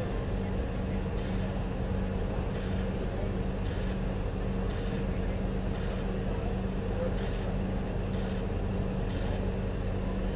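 Steady running noise of a local passenger train, a low hum with a faint sound repeating roughly once a second.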